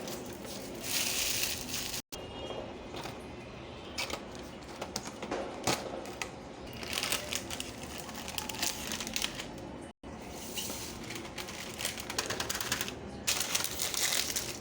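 Snack packaging crinkling and crackling as it is handled, in irregular bursts of sharp clicks, broken twice by a sudden brief drop to silence.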